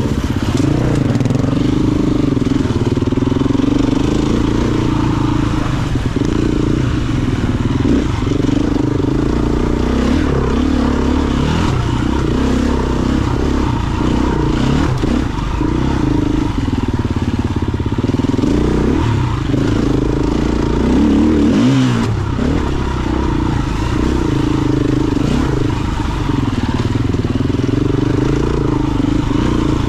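KTM EXC-F 350 single-cylinder four-stroke enduro motorcycle engine running loudly under load, its pitch rising and falling continually as the throttle opens and closes, with a brief drop in revs a little past the middle.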